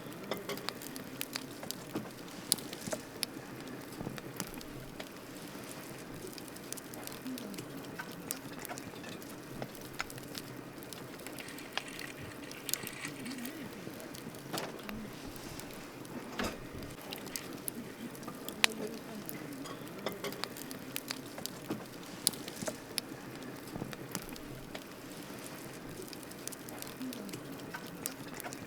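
Wood campfire burning, with irregular sharp pops and crackles over a steady low rush of the flames.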